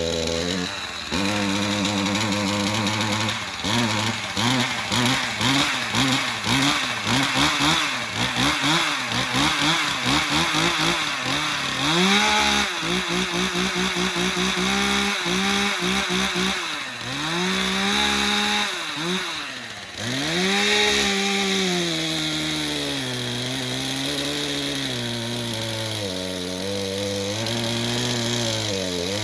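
Two-stroke chainsaw engine being revved over and over, its pitch rising and falling about once a second, then running at a slowly wavering speed for the last several seconds.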